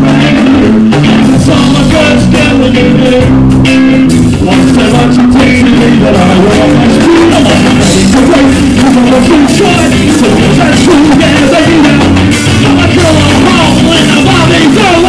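Ska band playing live and loud: male lead vocals over electric guitar and a drum kit.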